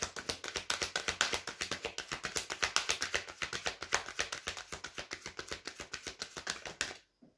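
A deck of tarot cards being shuffled by hand: a rapid, even patter of cards slapping against each other, about ten taps a second, that stops about seven seconds in.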